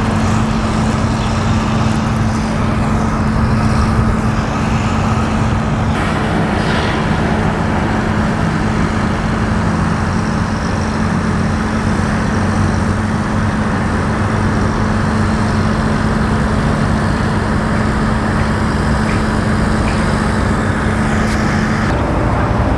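Steady low engine rumble with a constant droning hum, like motors running at idle. The hum stops near the end.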